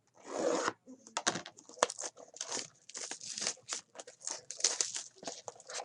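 Trading card pack wrapping being torn open and crinkled by hand: one loud tearing rasp near the start, then a run of short, irregular crinkles.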